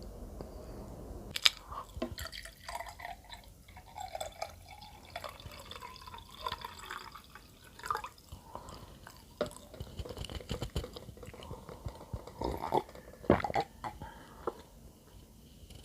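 Close-miked wet mouth sounds of someone eating bread: irregular small clicks and smacks of chewing.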